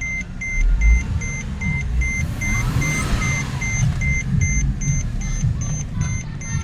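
Mercedes-Benz CLS 350's petrol V6 engine running at idle, now that the repaired ME9.7 engine computer lets it crank and start. Over it, a high electronic warning beep repeats steadily, about two and a half times a second.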